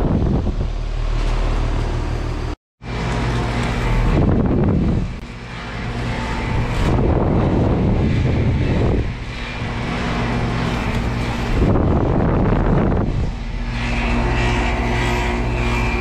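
Residential heat pump outdoor units running in heating mode: a steady compressor hum under the rushing air of the condenser fan, the air noise swelling and fading several times. About two and a half seconds in, the sound cuts out briefly and picks up again on another unit.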